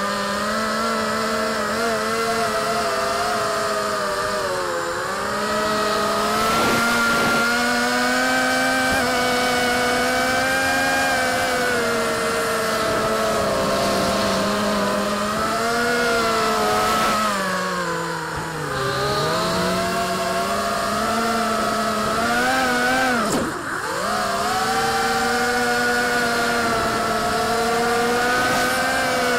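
FPV quadcopter's electric motors and propellers whining, the pitch rising and falling with the throttle. Past the middle the pitch sags deeply, and a few seconds later it drops sharply and briefly before climbing back.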